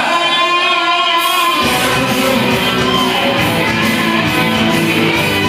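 Loud music with guitar playing over a club sound system. The bass drops out at first and comes back in with the full beat about a second and a half in.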